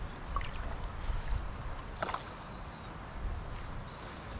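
Hooked brown trout splashing at the surface while being played on a fly rod, two short sharp splashes about half a second and two seconds in, over a low steady rumble. A few short high chirps sound near the end.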